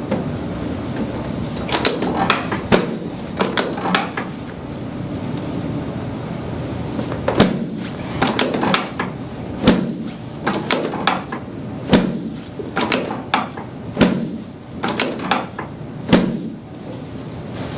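Irregular run of sharp knocks and clunks, about one to three a second, thickest through the middle and latter part, from a chiropractic adjustment of a face-down patient's lower body on the treatment table.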